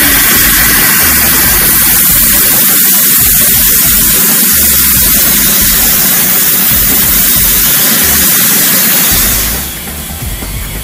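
BASE cold-steam sterilizer jetting steam with a loud, steady hiss that stops abruptly near the end.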